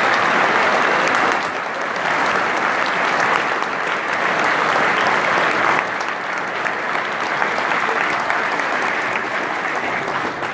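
Concert audience applauding, a dense sustained clapping that dies down at the very end.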